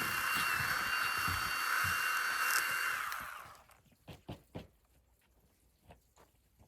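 A small electric power tool motor runs with a steady high whine, then winds down and stops about three seconds in. Scattered light knocks and clicks follow.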